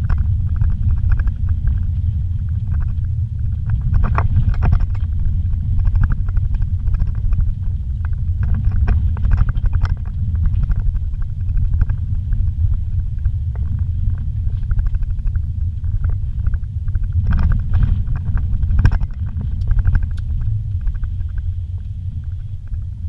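Vehicle cabin noise while driving slowly over a rough dirt road: a steady low rumble of engine and tyres, with clusters of knocks and rattles as the vehicle jolts over the bumps.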